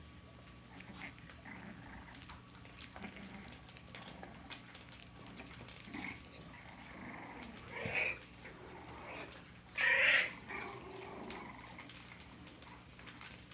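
Six-week-old Bugg puppies playing, with low play growls and two louder short yelps about two seconds apart, the second the louder.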